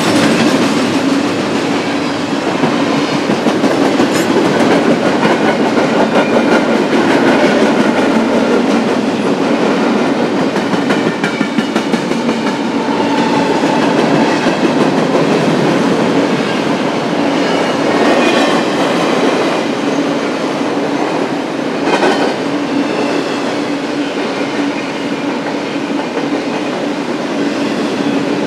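BNSF freight train rolling past, its cars' steel wheels rumbling and clacking on the rails with a steady low hum underneath.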